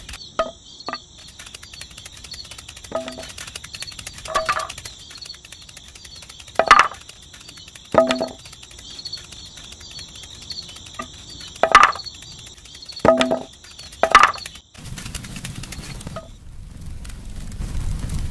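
Small wooden sticks knocking together as they are laid onto a campfire pile: about eight sharp, ringing clacks over a steady high chirping. Near the end a low rumble comes in as the fire catches.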